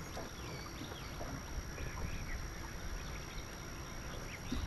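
Open-air lake ambience on a boat: a steady low wind and water noise with faint, scattered bird chirps in the background.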